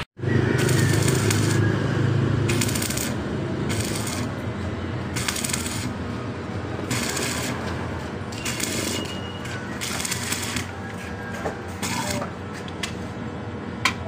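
Stick (arc) welder crackling as the electrode welds a broken steel motorcycle bracket plate, the hiss brightening and easing every second or so.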